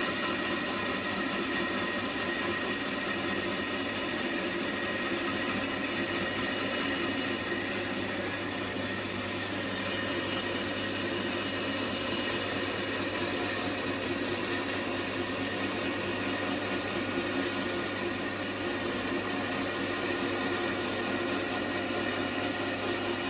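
A power tool's motor running steadily, its sound even and unchanging throughout.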